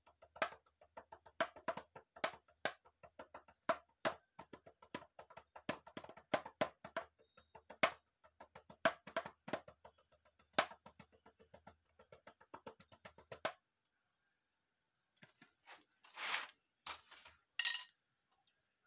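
Homemade percussion instrument with a pink plastic body, struck quickly with a stick in a busy, accented rhythm, several hits a second. The playing stops about thirteen and a half seconds in, and a few rustles and bumps follow near the end.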